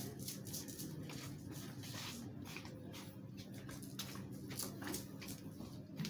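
Rajanpuri cross goats feeding from a basin of green fodder: irregular crunching and rustling as grass is pulled and chewed, over a faint steady low hum.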